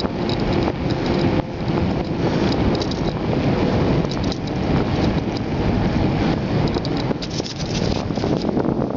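Wind buffeting the microphone of a bicycle-mounted camera while riding on fresh asphalt, with tyre noise and a steady scatter of small rattling clicks.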